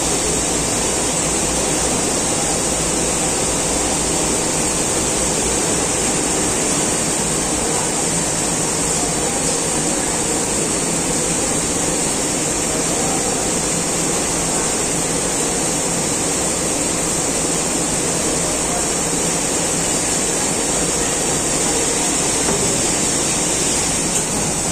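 TMS-YW sample yarn warping machine running, its warping drum turning as it winds yarn, with a steady, even rushing noise that does not change.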